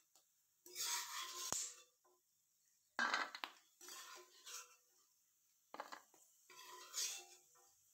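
A slotted steel spoon scraping the inside of a stainless-steel kadai and fried almonds being tipped into a steel bowl, in four or five short bursts of metal scraping and clinking with silence between.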